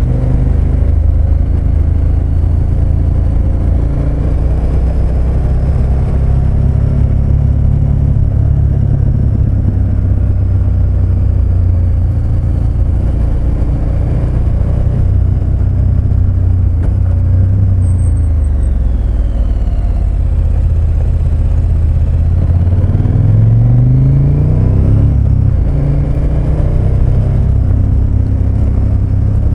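KTM 1290 Super Adventure S's V-twin engine running under way at steady road speed. Its revs ease off near the middle, then climb about three-quarters of the way through and drop again as the rider shifts.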